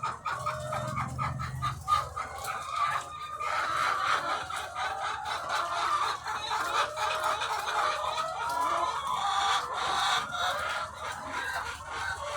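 A large flock of egg-laying hens clucking and calling all at once, a dense, continuous din of overlapping calls with scattered sharp clicks.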